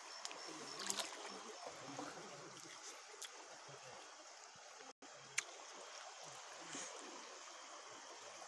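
Faint running and trickling of a shallow stream over rocks, with a few sharp clicks or knocks.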